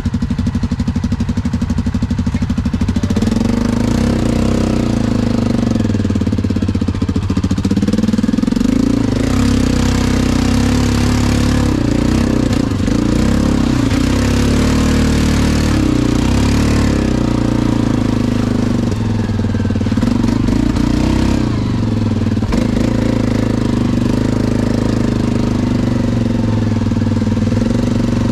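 ATV engine running close up while the machine is ridden along a muddy trail, its pitch rising and falling with the throttle. For several seconds midway a hiss of tyres churning through mud joins it.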